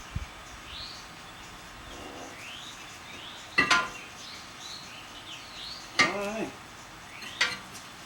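Three sharp metallic clanks with short ringing tails, about two seconds apart and the middle one the loudest, as metal tools or brake parts are knocked and set down. Birds chirp faintly in the background.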